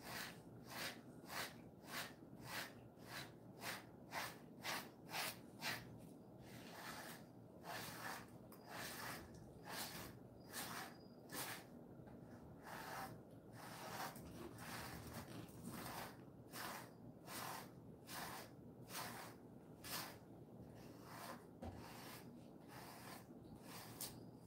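A pet brush stroking through a Jindo dog's coat: short swishing brush strokes, about two a second at first, then slower and more irregular.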